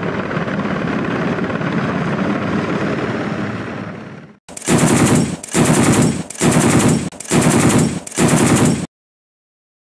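Helicopter door-mounted machine gun firing five short bursts in quick succession, each burst a dense rapid stream of shots. Before that comes about four seconds of steady helicopter noise that fades out.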